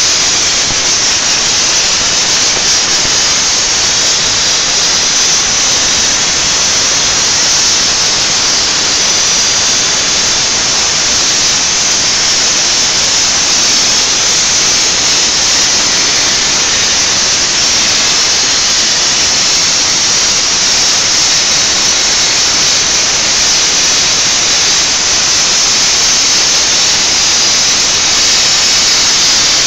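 CNC plasma torch cutting through 10 mm metal plate: a loud, steady, high-pitched hiss of the plasma arc that runs without a break.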